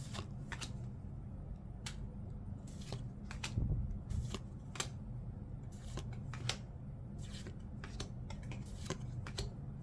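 Trading cards being flipped through one at a time, the card stock giving short, irregular flicks and slides, about a dozen over several seconds.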